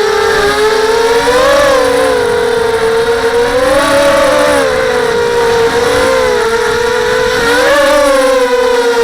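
SunnySky 2204 2300KV brushless motors spinning 5x3 props on a small FPV quadcopter, whining in flight, the pitch rising and falling with throttle changes.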